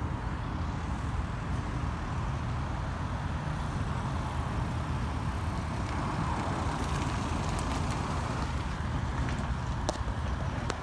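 Steady road traffic noise, swelling a little about midway as a vehicle passes, with wind rumbling on the microphone. A few faint clicks near the end.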